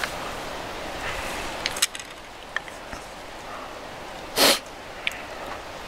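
Chopsticks clicking lightly against an iron pot and a wooden cup as hotpot is served, a few short clicks over a steady hiss. About four and a half seconds in comes a short, loud, breathy burst of noise.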